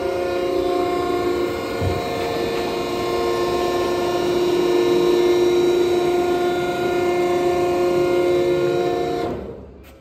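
Electric hydraulic power unit of a vertical cardboard baler running with a steady hum and whine of several tones, with one low clunk about two seconds in. It stops about nine and a half seconds in.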